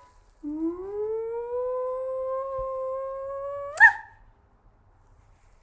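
A voice humming one long wordless note, sliding up at first and then held steady, ending in a quick upward squeak.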